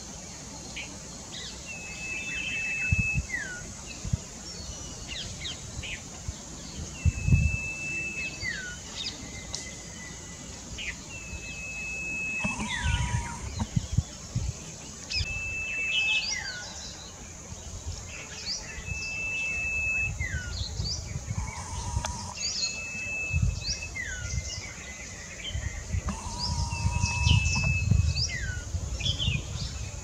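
A small songbird whistling a repeated song: a clear whistle held on one high pitch, then short falling notes, coming about every three to four seconds. Other birds chirp higher up in the background.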